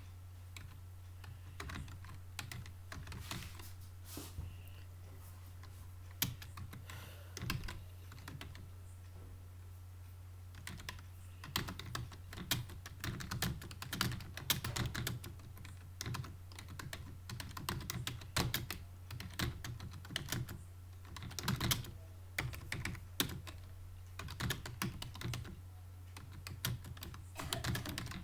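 Computer keyboard typing in uneven runs of keystrokes during a timed typing test: sparse for a few seconds in the first half, then quicker and denser. A steady low hum runs underneath.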